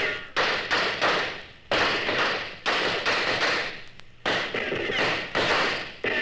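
A series of heavy thumps, one every half second to second, each dying away over about half a second.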